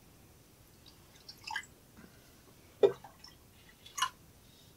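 Iced coffee poured from a small stubby can into glasses: three short splashes and drips, about a second and a half in, just before three seconds (the loudest) and at four seconds.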